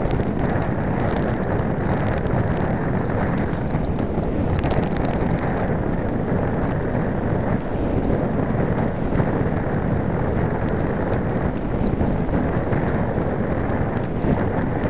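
Steady wind rush buffeting the microphone of a small keychain camera mounted on an RC foam plane in flight.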